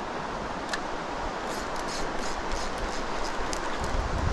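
Steady rushing noise of a river and strong wind, with light rustling ticks from about a second and a half in, and wind buffeting the microphone in low rumbles near the end.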